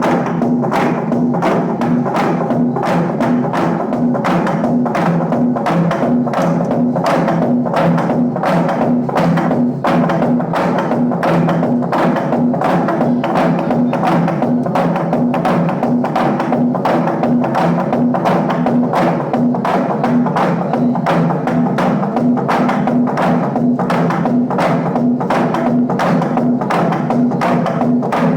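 Naga log drum, a hollowed tree trunk, beaten in a fast, even rhythm of about three to four strokes a second, with a steady low ring under the strikes.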